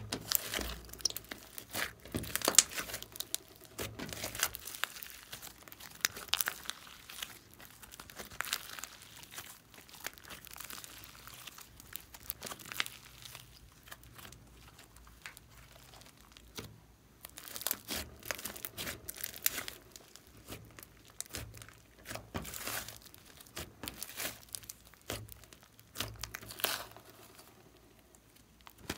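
Hands squeezing, pressing and stretching glossy slime: irregular sticky crackles and small pops as the slime is folded and pulled apart, thinning out for a few seconds in the middle.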